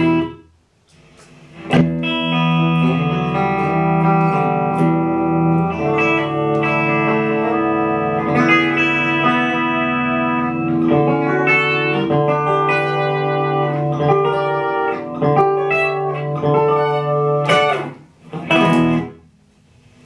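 Clean electric guitar, a Fender Stratocaster played through a Fender Champion 100 amp, ringing out chords and melodic notes. It stops about half a second in, resumes after a short pause, and ends near the close with a brief final phrase.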